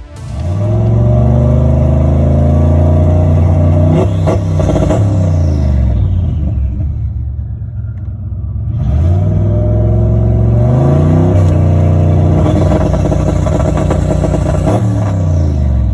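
Turbocharged 1992 Fox-body Mustang 5.0 V8 revved up and held at a flat, steady pitch against the MSD 6AL-2 two-step rev limiter. It drops back toward idle about five seconds in, revs up onto the limiter again just before ten seconds and holds there, then falls off near the end.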